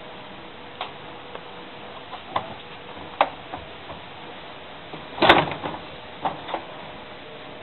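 Scattered clicks and knocks of plastic and metal parts being handled as an LG washing machine's lid and drum are taken apart, with the loudest knock a little over five seconds in.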